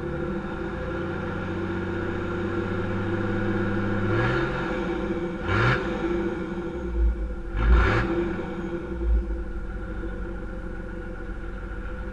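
Toyota Land Cruiser HDJ80's turbo-diesel straight-six idling through a 2.25-inch exhaust, revved up sharply twice about two seconds apart midway, then dropping back to a steady idle.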